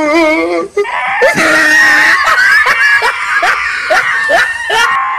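A high-pitched screaming voice from a comedy sound clip laid over the picture: a wavering wail at first, then, after a brief break about a second in, a sustained shrill scream pulsing about three times a second.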